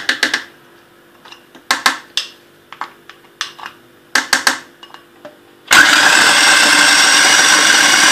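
Oreo cookies dropped one by one into a plastic food processor bowl, a string of sharp clicks and clatters. After about five and a half seconds the food processor switches on and runs loudly and steadily, chopping the cookies into crumbs.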